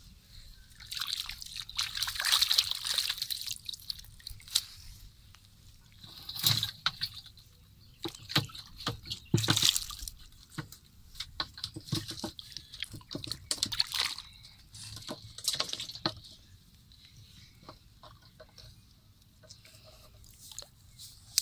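Muddy water splashing, sloshing and dripping as a wire-mesh basket is scooped through a small water-filled hole, in irregular bursts with small clicks, loudest about two to three seconds in and again around nine to ten seconds.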